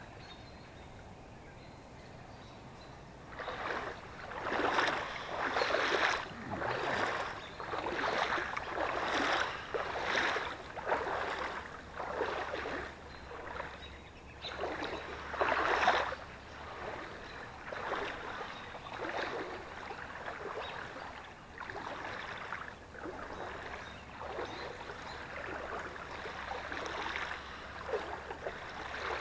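Footsteps in waders wading through shallow floodwater, the water sloshing and swishing with each stride, about one step a second, starting a few seconds in.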